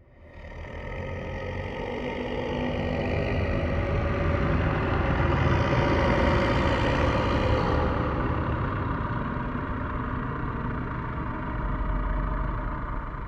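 Ghost growl sound effect: a low, rough, rumbling growl that swells in from silence within the first second. It holds steadily for over ten seconds and begins to fade near the end.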